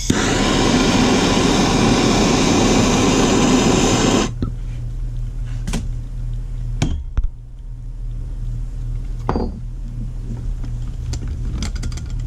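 Handheld gas soldering torch flame hissing steadily on a copper pipe joint while solder is drawn in. It stops abruptly about four seconds in. A low steady hum and a few sharp clicks follow.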